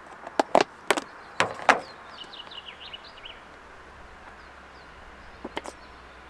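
Sharp clicks and knocks from objects being handled and set down on a pickup's tailgate, about six in the first two seconds and two more near the end. A bird chirps briefly in the middle.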